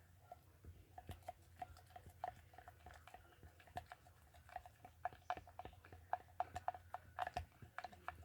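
A utensil stirring a sticky toothpaste slime mixture in a small bowl: irregular light clicks and taps against the bowl, coming thicker and faster in the second half.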